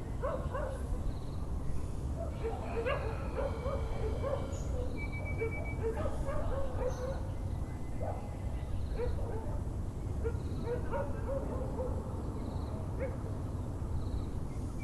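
Dogs barking and yipping in short, irregular bursts throughout, over a steady low background rumble, with birds calling.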